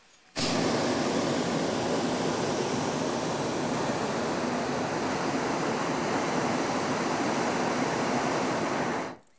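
Hot-air balloon's propane burner firing in one long blast of about nine seconds: a loud, steady rushing noise that starts abruptly just after the beginning and cuts off sharply near the end.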